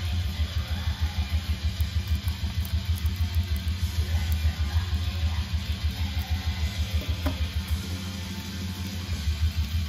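Black metal music with fast, steady bass-drum pulses under a dense wash of distorted guitar.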